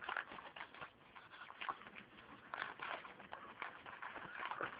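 Foil wrapper of a trading-card pack being torn open and crinkled, with cards rustling as they are handled: a run of irregular crackles.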